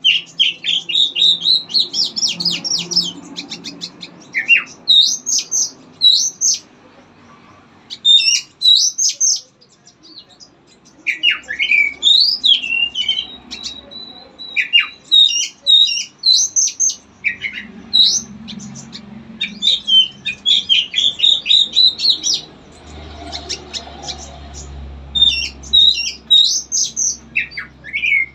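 A songbird singing a fast, varied song of sharp high chirps and whistles in bursts with short pauses, including one held whistle about halfway through.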